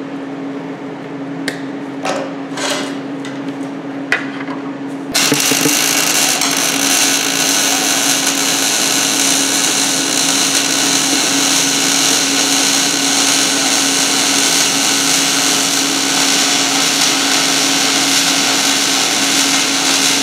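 MIG (GMAW) welder running a short-circuit-transfer arc on 14-gauge steel: a steady, dense crackling buzz that starts abruptly about five seconds in and carries on unbroken. Before the arc strikes there are a few light knocks as the gun and workpiece are positioned.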